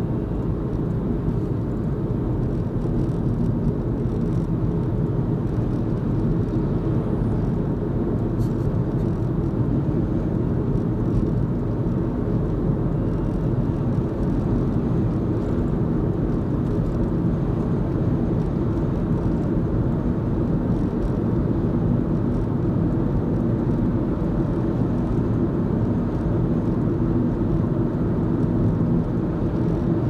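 A car driving at steady speed, heard from inside the cabin: a steady low rumble of tyres on the road and engine noise.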